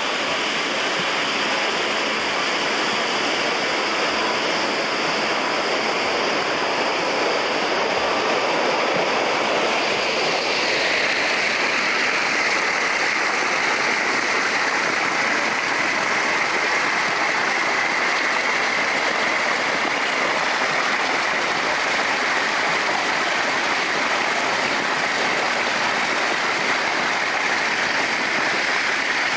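Water rushing and splashing into a pool in a steady, even noise. About ten seconds in, its tone drops somewhat lower.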